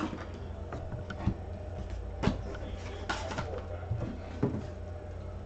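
Trading cards and their packaging being handled on a tabletop: scattered light taps, slides and clicks. A steady low hum runs underneath.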